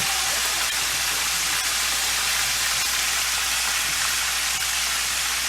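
Floured chicken pieces deep-frying in hot grease: a steady, even sizzle like rain.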